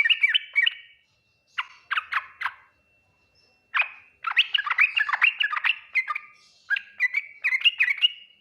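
Yellow-vented bulbul (trucukan) singing: quick, bubbly chattering phrases in about five bursts, with short pauses between them.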